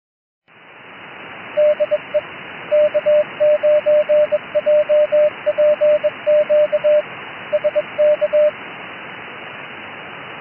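Morse code (CW) radio signal: a single steady tone keyed into dots and dashes over a constant hiss of receiver static. The keying stops a couple of seconds before the end while the static runs on.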